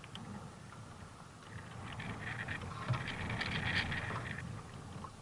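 Faint water lapping and trickling against a sea kayak's hull in shallow water: a soft wash with many small crackly ticks, growing a little louder about one and a half seconds in.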